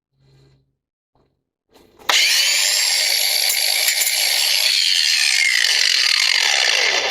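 Ryobi cordless angle grinder with a grinding wheel grinding on a stripped nut. It starts about two seconds in, runs steadily for about five seconds, then stops.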